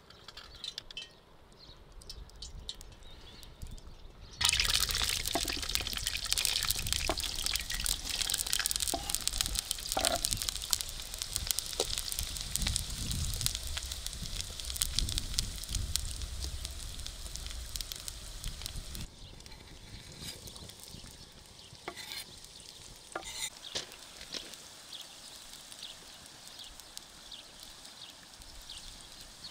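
Chopped onions frying in hot oil in a steel karahi. A loud sizzle starts suddenly about four seconds in, full of small crackles, then settles to a quieter steady frying hiss past the middle.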